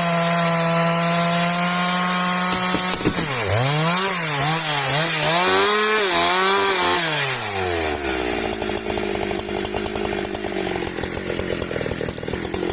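Husqvarna two-stroke chainsaw running at steady high revs while cutting through wood, then its pitch swings up and down several times as the throttle is worked. About eight seconds in it drops to an uneven idle.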